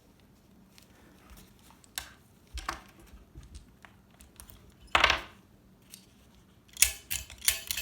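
Hard plastic of an animated Santa figure being handled: scattered clicks and knocks, a short louder scrape about five seconds in, and a quick run of clicks near the end.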